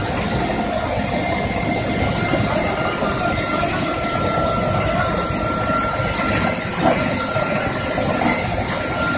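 Vimpo VCS 5400 chip spreader working at close range: its six-cylinder turbo diesel running and the machine spreading stone chips, a steady heavy mechanical din with a thin high squeal that sets in a few seconds in.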